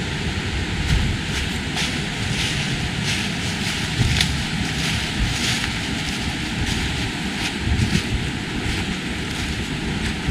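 Walker's footsteps crunching on a woodland path, about two steps a second, over a steady rushing noise with a low, uneven rumble.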